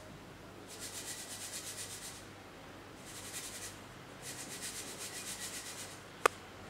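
Dry-fried grated coconut being rubbed and sifted by hand through a stainless-steel sieve, the mesh scratching in three bursts of a second or so each. A single sharp click comes near the end.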